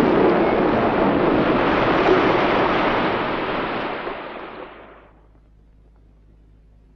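Sea surf washing, a dense rushing noise that fades out about five seconds in, leaving only faint background noise.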